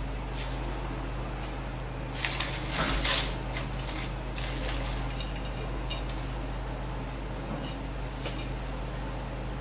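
Baby crow working at leaves with its beak: a burst of rustling and sharp clicks about two to three seconds in, then scattered light ticks, over a steady low hum.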